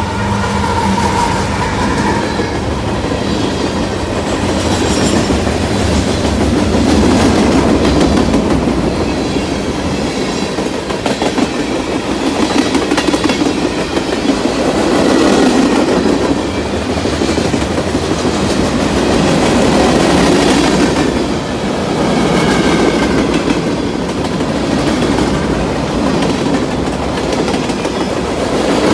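Freight train passing: the drone of the trailing GE diesel locomotive in the first few seconds fades, then the tank cars and centerbeam flatcars roll by with steady wheel clatter and rumble that swells and ebbs.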